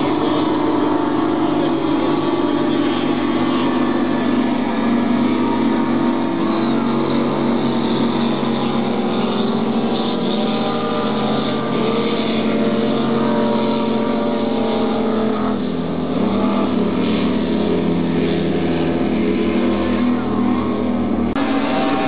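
Several racing powerboat engines running at high speed, their pitches rising and falling as the boats pass and overlap. The sound changes abruptly near the end.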